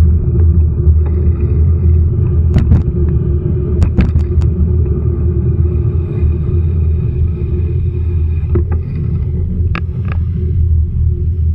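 Steady low rumble of a running vehicle with a faint steady hum, and a few sharp clicks scattered through it.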